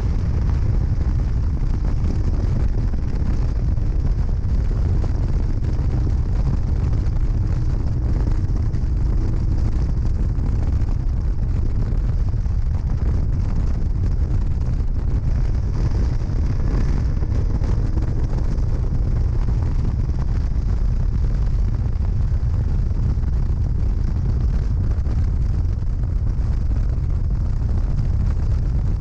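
Onboard sound of a 1968 MG Midget race car at speed. Its BMC A-series four-cylinder engine runs under load, largely buried under steady wind buffeting on the open cockpit's camera microphone.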